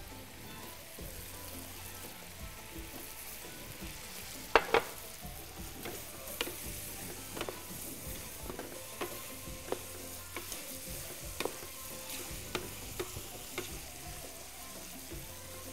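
A vegetable filling, with freshly added chopped tomatoes, frying in an aluminium pan over a gas flame: a steady sizzle. Wooden spatulas knock and scrape against the pan every second or so as it is stirred, the loudest knock about four and a half seconds in.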